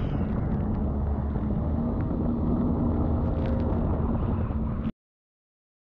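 Jet ski engine running steadily at speed, mixed with water and wind noise. It cuts off suddenly near the end.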